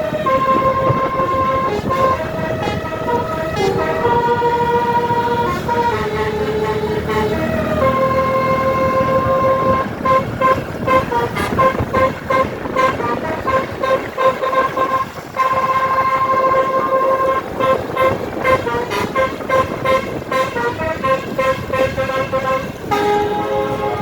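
Tour bus's multi-tone basuri telolet horn playing a tune: held notes stepping up and down at first, then quick stuttering toots on repeated notes.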